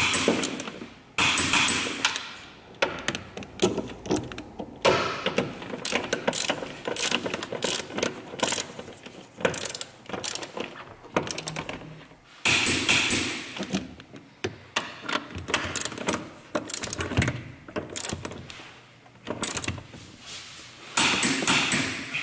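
Ratcheting torque wrench clicking in rapid runs, stopping and starting several times, as the three upper bolts of the front strut are run in and tightened to 75 Nm.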